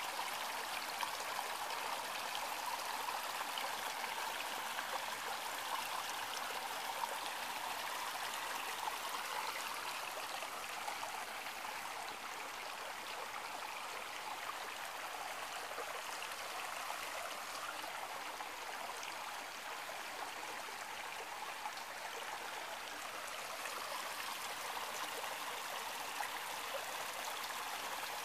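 Brook rushing and babbling over stones: a steady, even water noise that eases a little midway and swells again near the end.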